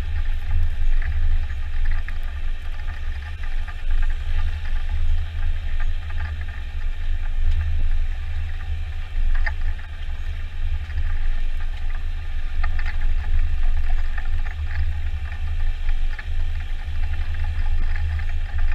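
Jarcrac Dual tracked forwarder driving loaded on its rubber tracks: the engine runs with a deep, steady drone, and a few sharp knocks and rattles come from the machine and its load of pulpwood.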